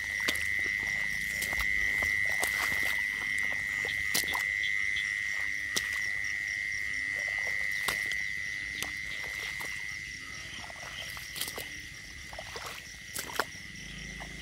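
Frogs calling as a continuous high-pitched chorus, with scattered sharp clicks and taps over it.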